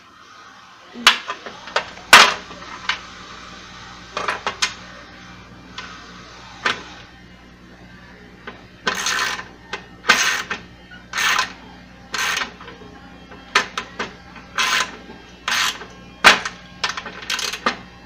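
Metal clinks and clicks of bolts being set into a washing machine's steel base plate and tightened with a ratchet wrench: a few clanks about two seconds in, then short clicking bursts about once a second through the second half.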